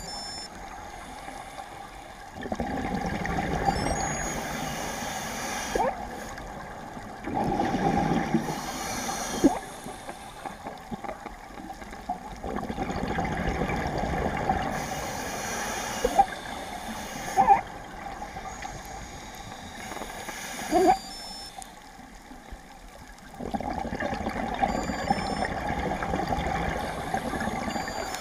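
Scuba diver's regulator breathing heard underwater: several stretches of exhaled bubbles gurgling for a few seconds each, with quieter gaps between breaths and a few sharp clicks.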